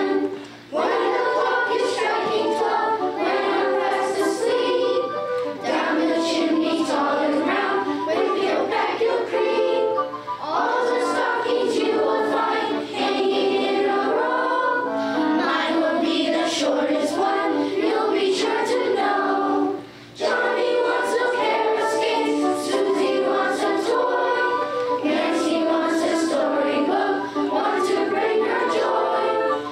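Children's choir of fourth and fifth graders singing a Christmas song in harmony, with short breaks between phrases about every ten seconds.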